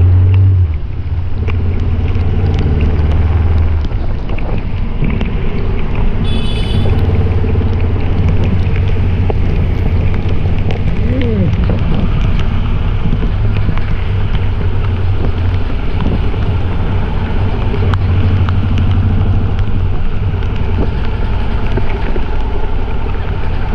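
Bajaj Dominar motorcycle's single-cylinder engine running steadily while riding along a rain-wet street, with wind noise on the microphone over it. A brief high tone sounds about six and a half seconds in.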